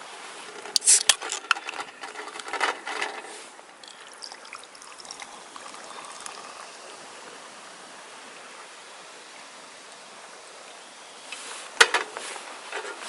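Liquid trickling steadily, with a few sharp clicks and knocks near the start and again near the end.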